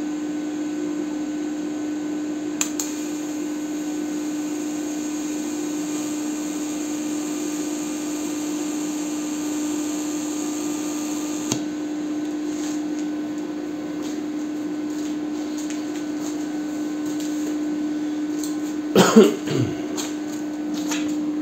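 Welding inverter humming with a steady low tone, and the faint hiss of a TIG arc on steel tube that starts with a click about two and a half seconds in and cuts off near the middle. The inverter is louder than the arc itself. A brief vocal sound near the end.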